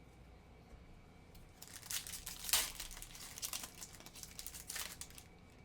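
Crinkling and tearing of a foil trading-card pack wrapper being opened and handled, in rustling bursts with the loudest rip about halfway through.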